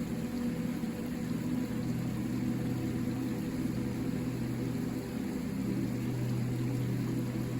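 River water flowing: a steady, low rushing without breaks.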